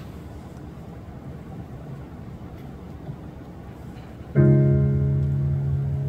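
Low room rumble, then about four seconds in a single chord is played on an instrument and rings out, slowly fading: the opening chord of a song.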